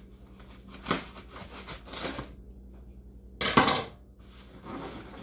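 Cardboard box and packaging being handled: a few light clicks and knocks, then a louder scraping rustle about three and a half seconds in.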